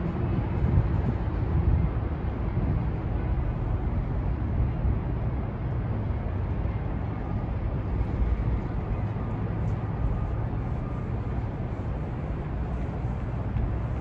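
Steady outdoor city background noise, a low rumble with no distinct events standing out.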